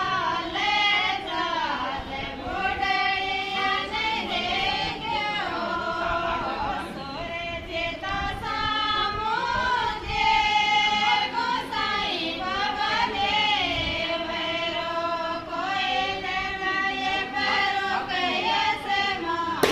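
A group of women singing a devotional folk song to Gusain ji Maharaj without instruments, in long sliding melodic lines.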